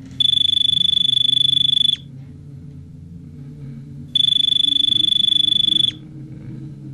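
A loud, high electronic beep, one steady tone held for nearly two seconds, sounds twice about four seconds apart over a low steady hum. The second beep flutters rapidly.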